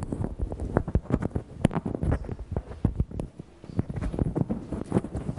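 A rapid, irregular run of close knocks and clicks, several a second, with a short lull a little past the middle.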